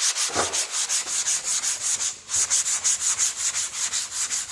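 Worn 120-grit sandpaper rubbed in quick back-and-forth strokes over a varnished wooden drawer panel: a gritty rasping hiss, with a brief pause about two seconds in. The paper is knocking the burrs and roughness off the dried last coat of varnish.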